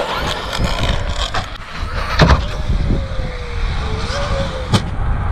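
Traxxas Maxx V2 RC monster truck's brushless motor whining as the truck runs and launches off a ramp, with a loud knock about two seconds in, then a thin whine that slowly falls in pitch. A second sharp click comes near the end, over a steady low rumble.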